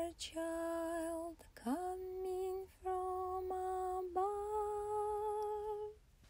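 A woman's voice sings the slow closing notes of a St. Nicholas song in about four long-held notes with no clear words. Some notes are scooped up into from below, and the voice fades out near the end.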